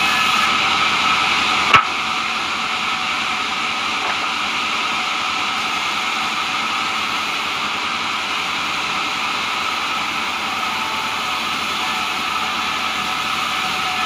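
Sawmill band saw running steadily, with one sharp knock just under two seconds in.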